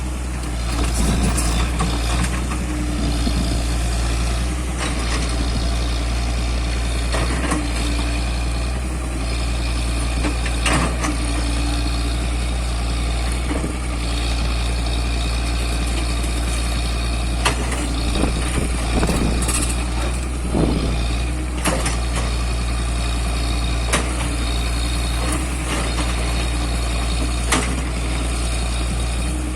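Heavy diesel construction machinery running steadily with a low drone, with scattered sharp clanks and knocks.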